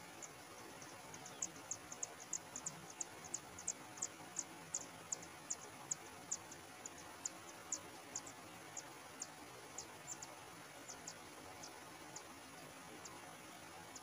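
High, thin begging cheeps from kacer air (forktail) nestlings in their moss nest: a quick series of short calls, about three a second, that builds after the parent leaves, then thins to scattered single calls near the end, over a steady faint hiss.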